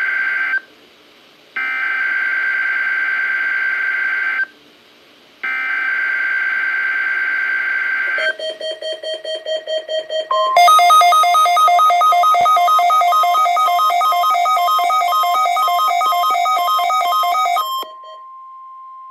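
Emergency Alert System SAME header on NOAA Weather Radio: three shrill, warbling digital data bursts separated by about a second of quiet. Then a couple of seconds of rapid electronic beeping, followed by the steady 1050 Hz warning alarm tone with an alternating beep pattern over it; the plain tone carries on alone for the last second or so.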